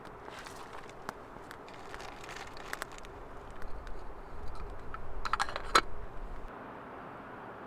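Campfire crackling with scattered sharp pops, and about five seconds in a metal lid clattering down onto a blackened camp kettle.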